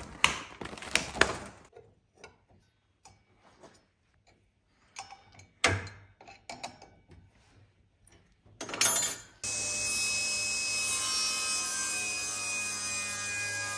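Scattered knocks and clicks of tooling being handled, then a spindle moulder fitted with twin saw blades starts suddenly about nine seconds in and runs steadily with a constant hum.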